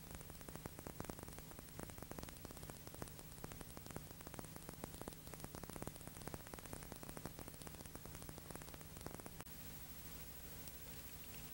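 Faint crackling static over a steady low hum: the noise floor of a soundless old film transfer. About nine and a half seconds in, the crackle stops and only a steady hiss and hum remain.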